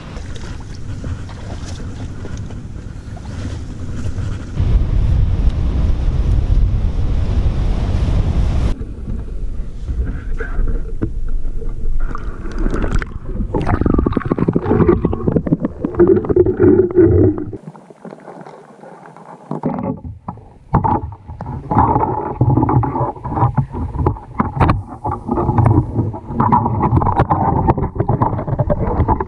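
Wind buffeting the microphone, then a sudden change about nine seconds in to a muffled underwater recording: swirling water with frequent knocks and scrapes as the poke pole probes the rocks.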